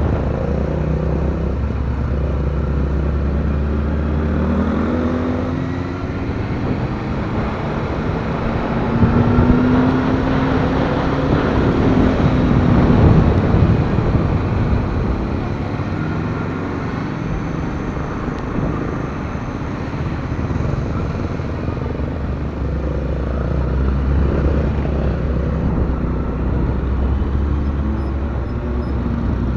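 Motorcycle engine running under way, its pitch rising and falling with the throttle, over a steady low rumble that is strongest near the start and end.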